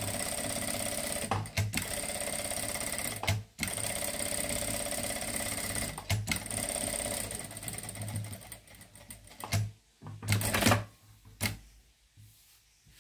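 Sewing machine stitching through layered fabric, running in long steady stretches with brief stops as the work is turned, then stopping about seven or eight seconds in. A few short handling knocks and rustles follow.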